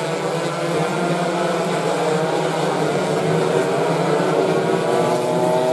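Several standard 116 cc two-stroke underbone racing motorcycles running together on the start grid, their engine notes overlapping. One note rises in pitch near the end.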